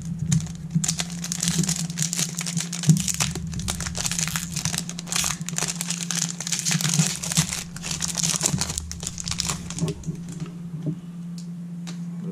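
Foil wrapper of a baseball card pack crinkling as it is crumpled in the hands, with dense crackling that stops about ten seconds in.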